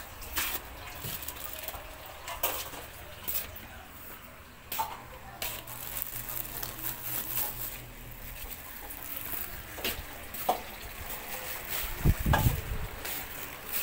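Scattered light clicks and knocks over a low background hiss, with a loud low thump about twelve seconds in as the phone is moved.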